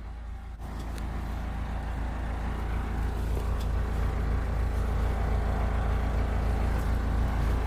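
Backhoe engine running steadily, picking up about half a second in and holding at a higher, even level as the machine works the load.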